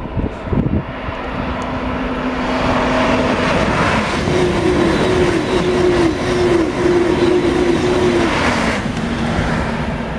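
Eurostar high-speed train passing at speed: the rush of wheels and air builds over the first few seconds, then fades near the end. A hum rides over it and pulses in quick succession while the train goes by.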